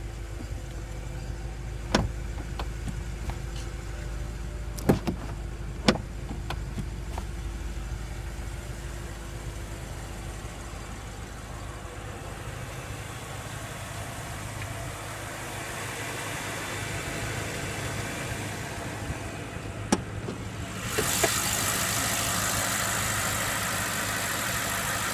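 BMW M6's 4.4-litre twin-turbo V8 idling steadily, with a few sharp clicks and knocks. Near the end the running sound turns suddenly louder and hissier.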